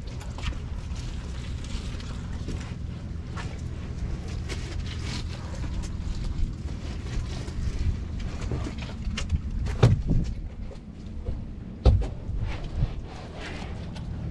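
Hand-washing a boat's side: scattered brush-scrubbing scrapes and knocks over a steady low mechanical hum, with two louder thumps about ten and twelve seconds in.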